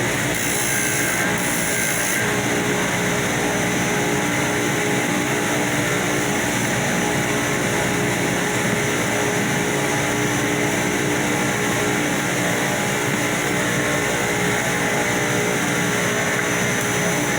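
Electric power sander running steadily, its motor giving a constant whine over the rasp of abrasive on the surface being sanded.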